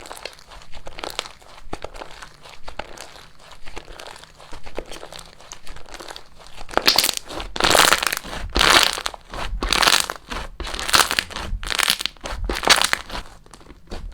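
Slime being handled, with a steady run of fine crackling, crinkly sounds; about halfway through it gets louder, with a crunchy squeeze or press roughly once a second.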